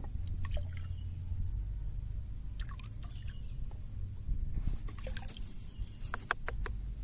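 Liquid poured from a small plastic bottle cap into a basin of water, dripping and trickling, with scattered small splashes and clicks. The clicks and drips come thickest about two thirds of the way through.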